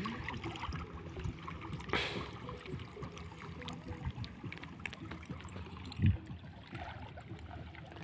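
Shallow sea water sloshing and splashing as a man wades waist-deep hauling a fishing net by hand, with small drips and trickles. A sharp splash comes about two seconds in, and a low thump about six seconds in.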